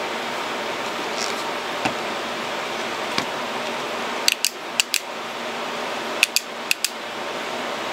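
A few faint ticks, then two quick clusters of about four sharp clicks from the small flashlights and their prototype mounts being handled on a freeskate. A steady hiss runs underneath.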